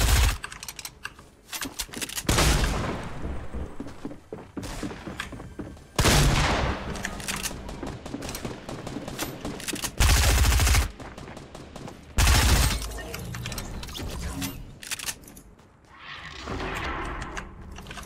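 Video-game gunfire: about five bursts of rapid shots with short pauses between them.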